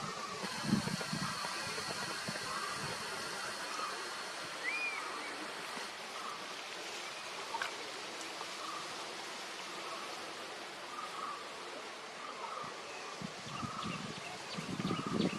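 Running river water: a steady even rush, with a thin steady high whine and small repeated chirps over it, and low wind gusts on the microphone near the start and the end.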